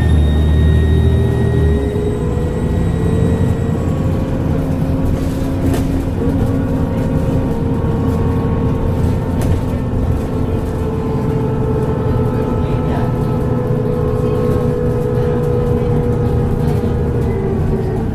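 Transbus Trident double-decker bus's diesel engine running under way, with a heavy low rumble that eases about two seconds in, then a steady drone with a gently wavering tone. A thin high turbo whistle slides down and fades over the first few seconds, and there is a single knock about six seconds in.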